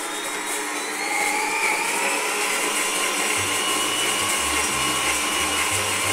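Planetary stand mixer running, its motor whine rising as it speeds up in the first second, then holding steady while the beater creams softened butter and sugar.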